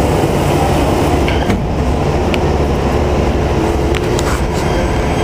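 PATH PA-5 subway train pulling out of the station: a steady, loud low rumble of motors and wheels with a few sharp clicks, and a faint motor tone rising slowly near the end as it gathers speed.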